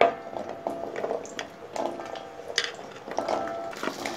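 Shallots dropped by hand into a metal kadai with a little hot oil: a run of light knocks and clatters, many with a brief metallic ring from the pan. Near the end a sizzle starts up as the oil begins frying them.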